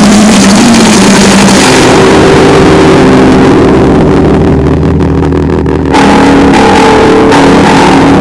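Loud noisecore: a dense mass of harsh distorted noise with droning low tones. About four seconds in the high end falls away, leaving a low distorted drone, and the full-range noise cuts back in suddenly about two seconds later.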